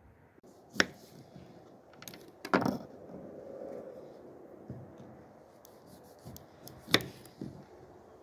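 Knife cutting lemons on a wooden cutting board: a few sharp knocks of the blade striking the board. The loudest come about a second in, a fuller thud midway, and another about seven seconds in.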